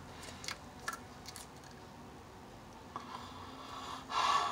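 Homemade slime handled close to the microphone: a few faint, short sticky clicks as it is squeezed in the hand, then a short hiss near the end.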